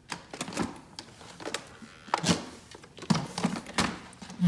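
A string of plastic clicks and knocks, about eight or nine, from the ZOOZEE Z70 robot vacuum being handled.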